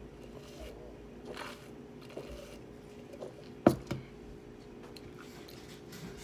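Person eating close to the microphone: faint chewing and mouth sounds, with a sharp knock a little past halfway and a smaller one right after it.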